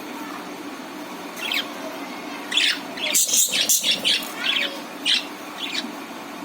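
Budgerigars chirping: a few short, high chirps, with a quick flurry of them in the middle, over a faint steady low hum.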